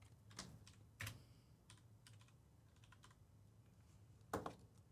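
Faint, scattered clicks of a computer keyboard being typed on, a few keystrokes with pauses between, over a low steady hum.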